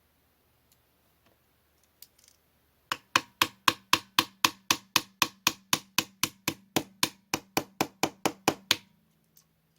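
A small hammer tapping steadily, about four sharp taps a second for some six seconds, while taking apart an Umarex VP9 air pistol, typical of driving out a pin. A faint steady hum runs under the taps.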